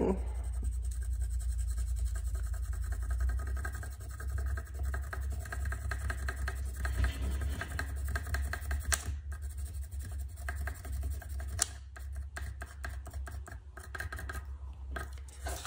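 Pencil scratching rapidly back and forth across a sheet of paper laid on wood, taking a rubbing of a small veneer void. A low steady hum runs underneath.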